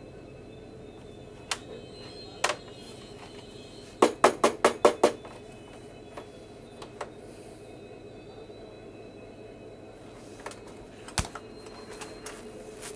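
Handling clicks and knocks from an electric room heater's plug, cord and metal casing: a few single clicks, a quick run of about six clicks around four seconds in, and a low thump about eleven seconds in.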